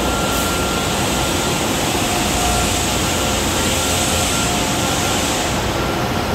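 Industrial glass-washing machine running: a steady mechanical rumble with a constant thin whine and a hiss over it that drops away near the end.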